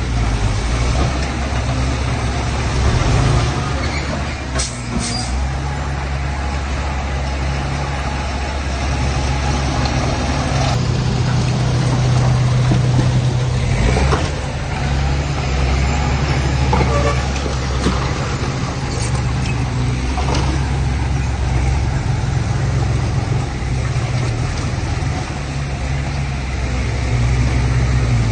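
Heavy diesel machinery engines running steadily with a low drone. A few short, sharp high-pitched sounds cut through it, twice close together about five seconds in and again around eleven and fourteen seconds.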